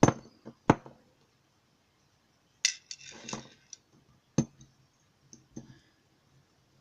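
Sharp metallic clicks and clinks from a padlock being taken apart: small metal parts and tools tapping against each other and a pin tray. A handful of separate knocks, with a short rattling scrape about three seconds in.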